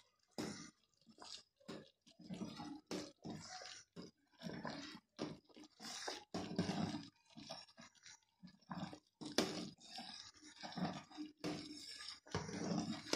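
A ladle stirring soup in a steel pot, giving irregular scrapes and clicks against the pot, as beaten egg is drizzled in to set into ribbons.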